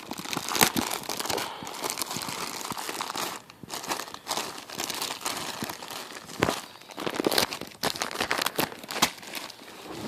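Packaging being handled and pulled open by hand, with continuous crinkling and irregular sharp crackles and tearing sounds.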